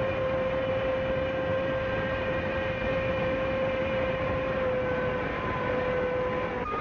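Steam locomotive whistle blowing one long, steady note over the noise of the train, with a slight shift in pitch near the end.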